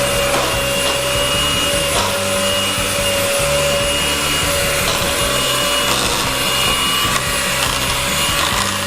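Electric blender running steadily with a constant whine, mixing milk and instant chocolate pudding mix.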